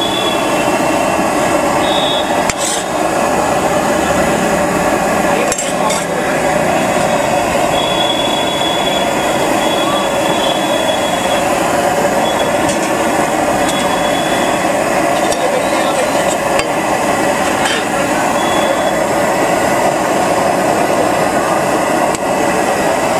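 Steady busy street din with crowd chatter, and now and then the clink of a metal spatula on a large flat steel griddle. A thin high tone sounds on and off in the middle.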